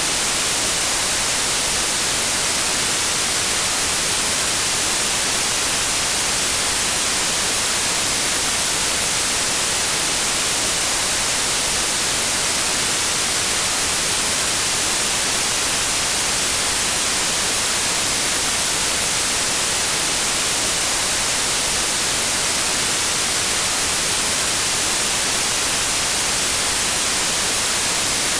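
Steady white noise: an even, unchanging hiss, strongest in the highs.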